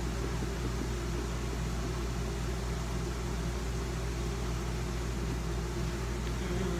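Steady low hum with a hiss of room noise, unchanging throughout, with no distinct knocks or clicks.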